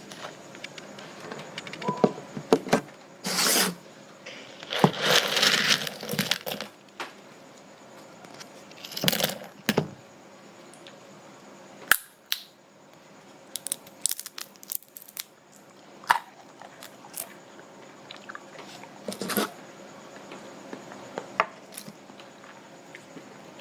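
A person eating kuaci, cracking the roasted seeds open between the teeth: irregular sharp cracks and clicks, with a few longer crunching stretches.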